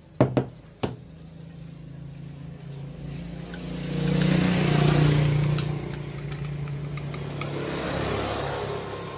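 Two sharp knocks near the start. Then a motor vehicle passes close by: its engine hum swells to a peak about halfway and fades, with light clinks of a metal spoon against a plastic cup.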